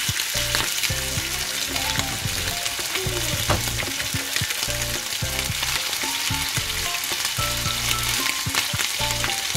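Minced chicken-liver kebab patties shallow-frying in hot oil in a frying pan: a steady sizzle with dense crackling and spitting, as liver spits oil while it fries. More raw patties are laid into the oil.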